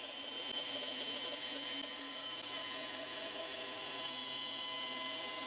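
Bandsaw running steadily, its narrow blade making a slow, careful cut through a plywood template, with a faint whine over an even hiss.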